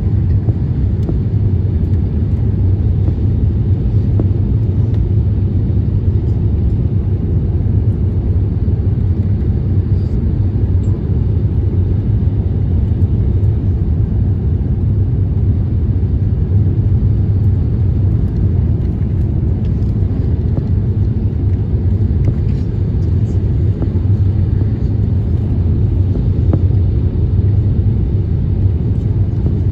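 Steady low rumble of Airbus A350-1000 cabin noise: the engines and air rushing past the fuselage, heard from inside the cabin.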